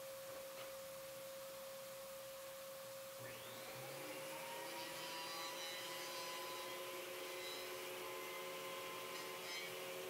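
Two workshop motors running without load: a steady hum runs throughout, and about three seconds in a second motor spins up with a rising whine and settles into a steady whir. They are a Craftex CX125HC benchtop thickness planer and the shop vac connected to it.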